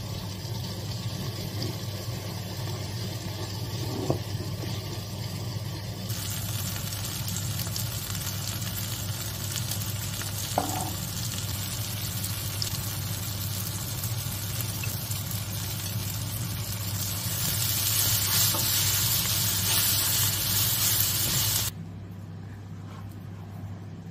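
Sliced red onions and tomatoes sizzling in a frying pan as they are stirred with a wooden spoon, over a steady low hum, with a couple of sharp taps. The sizzle grows louder late on, then drops away suddenly a couple of seconds before the end.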